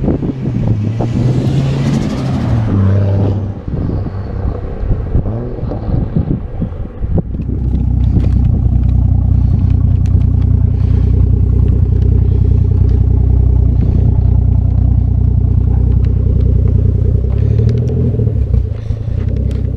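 Ford FG XR6 Turbo's turbocharged 4.0-litre straight-six exhaust through a Varex muffler, revs rising and falling in the first few seconds with a burst of hiss, then running at loud steady revs close by, with a brief blip of revs near the end.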